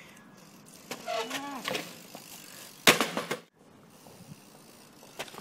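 BMX bike clattering hard on paving, one loud impact about three seconds in. About a second in there is a short shout.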